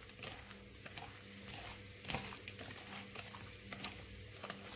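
Raw salted whiting being tossed by hand in a plastic bowl: faint, irregular wet slaps and squelches of the fish against each other and the bowl.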